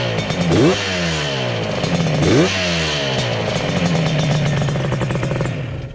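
Yamaha RD350's two-stroke parallel-twin engine, fitted with HVC Cycle CNC heads, revving in quick blips about a second in and again a little after two seconds, the pitch falling away after each, then running steadier before dropping away near the end. Wind noise from the uncovered GoPro microphone lies over it.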